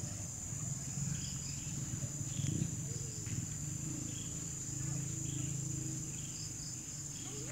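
Steady high-pitched insect chorus, like crickets trilling, with a low steady rumble underneath.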